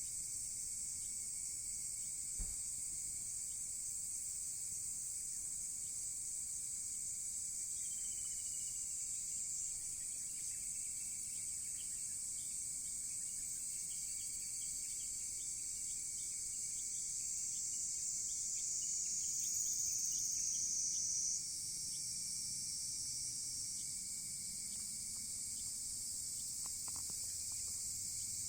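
A steady, shrill chorus of insects, with faint ticks and a single soft pop about two seconds in from a burning wood fire.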